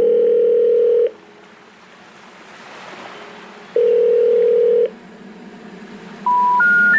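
Telephone-line tones: a steady ringing tone sounds twice, about a second each, with faint hiss between. Near the end come three short beeps, each higher than the last: the special information tone that comes before a 'number not in service' recording.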